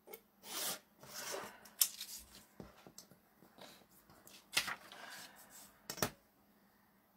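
A craft knife drawn through printed paper along a metal ruler on a cutting mat, with paper rustling as cut strips are moved and a few sharp clicks as the metal ruler is set back down.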